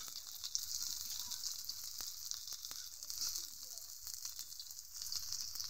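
Okra fritters in rice-flour batter sizzling in a little oil in a karai: a steady frying hiss with a few small pops.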